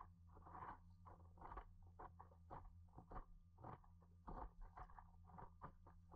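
Faint, muffled water slapping against the nose of a moving paddleboard: an irregular patter of small taps, about two a second, over a low steady hum.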